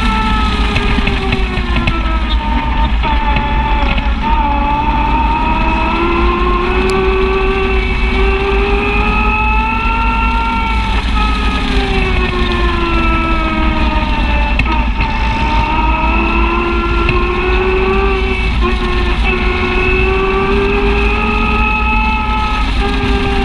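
Side-by-side UTV driving along a dirt trail, heard from on board: its engine and drivetrain whine rising and falling in pitch every few seconds as the speed changes, over a constant low rumble.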